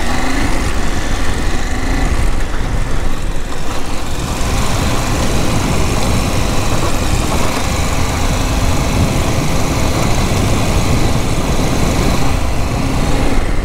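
KTM 890 Adventure's parallel-twin engine running steadily as the motorcycle rides slowly along a gravel track, with wind noise on the microphone.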